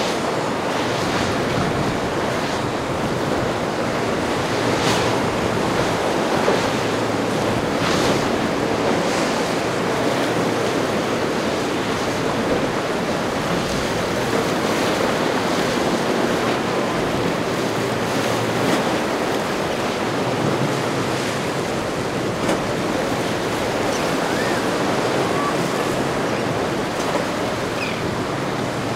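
Ocean waves surging and breaking in a steady wash, with wind buffeting the microphone.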